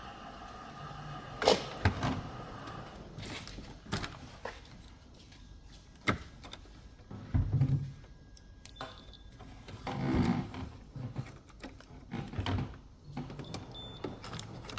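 Irregular clicks, taps and knocks of hands handling a washing machine's removed water inlet valve while it is checked, with a sharp pair of clicks about a second and a half in. The valve is being tested because it is suspected of being shorted.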